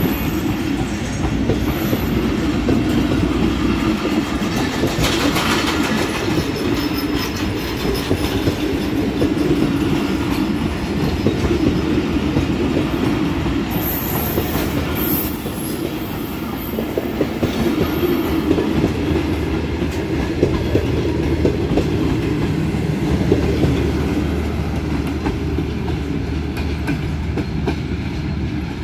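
Passenger coaches of a departing express train rolling past, their wheels clattering steadily over the rail joints; the last coach goes by near the end.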